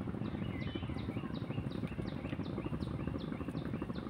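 A bird calling over and over, repeating a short high note about two or three times a second, over a steady low outdoor background noise.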